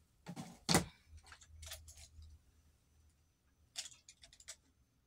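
Drinking through a straw from an insulated tumbler with ice: a louder brief noise under a second in as the cup is handled, then a series of short, noisy sips, with another cluster near the end.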